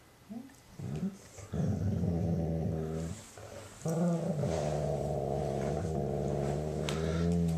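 German Shorthaired Pointer making her happy noises while another dog licks her ear: a couple of short rising squeaks, then two long, low, steady moans, the second about four seconds long. The sounds show she is content.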